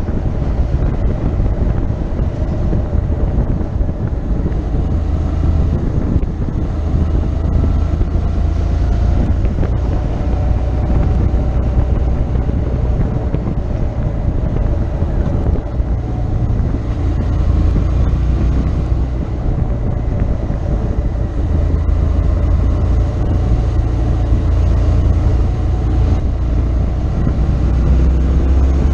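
Motorcycle engine running while riding, its pitch slowly rising and falling with speed changes, under heavy wind buffeting on the bike-mounted microphone.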